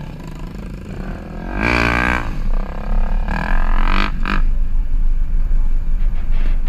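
Off-road vehicle driving on a gravel trail: a steady low rumble of engine and wind on the microphone. An engine revs up and back down about two seconds in, with shorter revs around three and a half to four seconds in.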